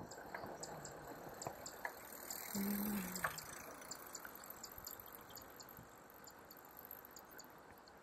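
Faint outdoor ambience with soft high ticking throughout and a short, low, slightly falling hum about two and a half seconds in.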